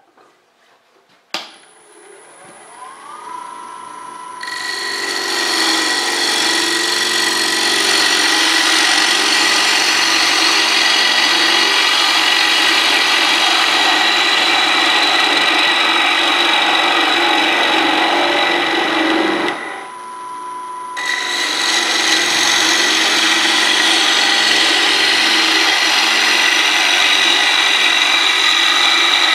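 Wood lathe switched on with a click, its motor whine rising as it spins up. A few seconds later a bowl gouge starts cutting the inside of the spinning dry elm bowl: a steady, rough shearing noise over the lathe's whine. The cut breaks off for about a second near two-thirds of the way through, leaving only the whine, then resumes.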